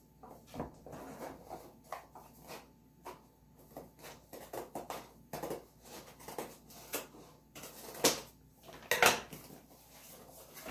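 A small cardboard product box handled and opened by hand: a run of scraping, rubbing and tapping of the cardboard and its flaps, with two louder sharp sounds near the end.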